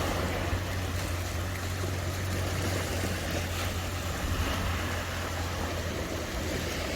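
Steady rush of sea surf, with wind rumbling on the microphone.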